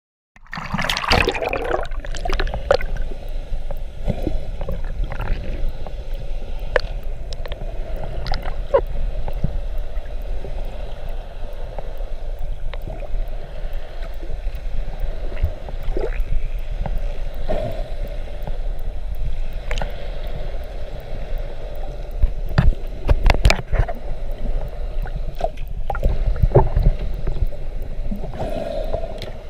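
Muffled underwater sound picked up by a camera in its waterproof housing: water rushing and gurgling with a deep rumble, broken by scattered sharp clicks and knocks, with a louder splashy burst about a second in.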